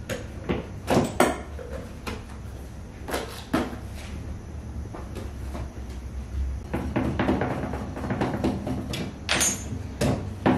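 Several sharp knocks and clunks of bakery work, with a busier patch of clatter in the second half, over a low steady hum.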